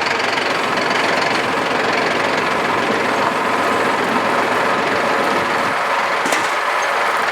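A vehicle engine running steadily under load, towing a truck with a dead engine on a chain.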